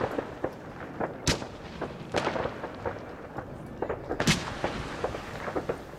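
Consumer firework cakes firing shots into the sky: sharp bangs about a second in, around two seconds and a loud one just after four seconds, with lighter pops and crackles between.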